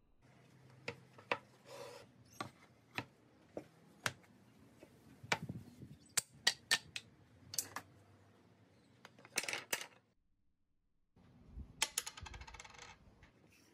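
Hardwood boards and offcuts knocking and clacking as they are picked up, sorted and set down on a wooden bench, with brief scrapes of wood sliding on wood. Near the end a coin rattles on a wooden board.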